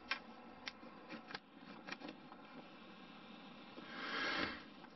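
Faint handling noises from a balsa wing frame: a few light clicks in the first two seconds, then a soft rushing rub about four seconds in.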